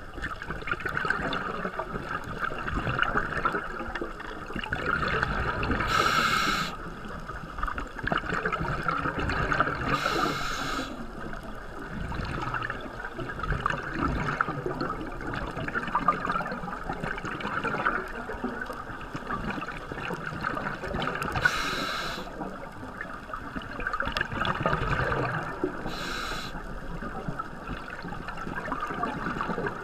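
Underwater scuba dive heard through a camera housing: a steady watery hiss and bubbling, broken four times by a short full-range rush of the diver's regulator breathing and exhaled bubbles.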